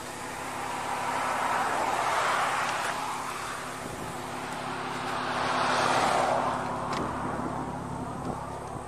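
Road traffic passing: two vehicles go by one after the other, each rising and then fading. The first peaks about two seconds in, and the second, slightly louder, about six seconds in.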